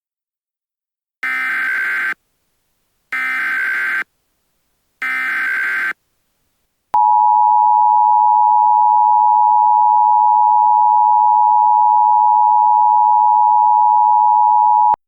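Emergency Alert System activation: three short bursts of SAME digital header data, about two seconds apart, followed by the EAS two-tone attention signal (853 and 960 Hz together), a loud steady tone held for about eight seconds that cuts off suddenly.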